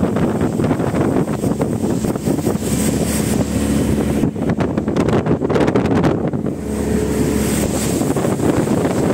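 Speedboat's outboard motor running at speed under a steady rush of wind buffeting the microphone.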